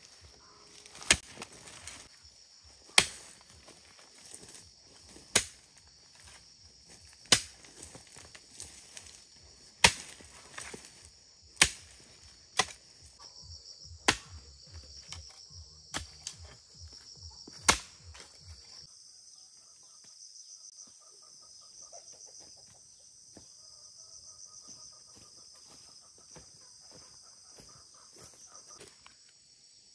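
About ten sharp knocks, roughly one every two seconds, that stop a little past the middle. Under them is a steady, high-pitched insect chorus that carries on alone afterwards.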